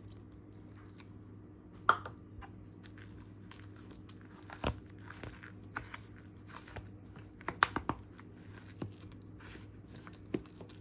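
Metal spoon stirring a thick buckwheat-flour-and-water batter in a ceramic bowl: soft wet mixing with irregular scrapes and clinks of the spoon against the bowl. The sharpest clinks come about two seconds in and in a quick cluster a little before eight seconds.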